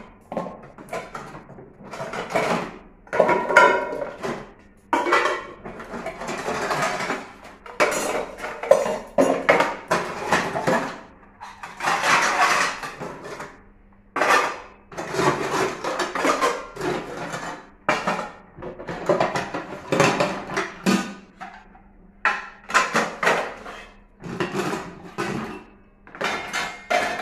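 Stainless steel bowls, plates and a colander clattering and clinking irregularly as they are stacked into a plastic dish basket to drain.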